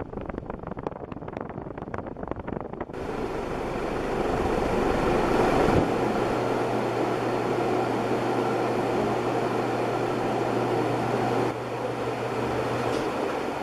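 1984 Golden Fan 90 cm ceiling fan running, heard as a steady rush of moving air. Rapid irregular clicking fills the first three seconds before the louder, even rush sets in, and a low steady motor hum joins about halfway through.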